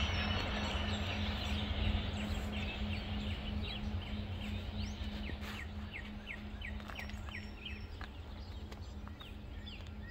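Low rumble of a departing freight train slowly fading, under a steady low hum, while birds chirp in short, repeated falling notes.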